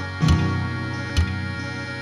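Intro music with a steady beat: a chord struck about once a second, each strike with a low thump and notes ringing on between them.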